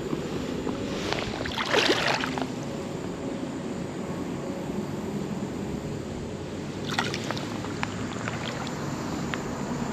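Steady rumble of road traffic under moving creek water, with two short splashes about two seconds in and again about seven seconds in, as a caught smallmouth bass is held in the water to be released.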